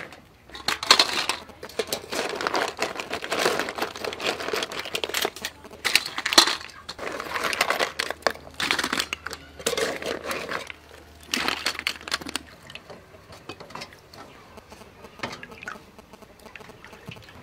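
Cooked shellfish shells clattering against each other and against a wire skimmer and metal colander as they are scooped out of the pot, in repeated rattling bursts that die down after about twelve seconds.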